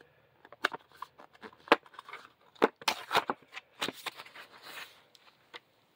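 Metal combination wrenches being tilted off their storage rail and handled: a string of irregular clicks and clinks.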